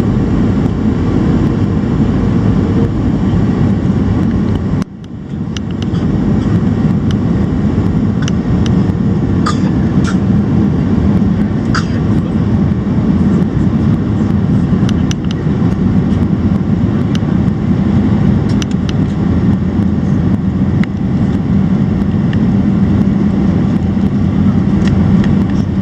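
Steady cabin noise inside a Boeing 737 airliner: the jet engines and rushing air make a constant low rumble. It drops out briefly about five seconds in, then comes back at the same level, with a few faint clicks later on.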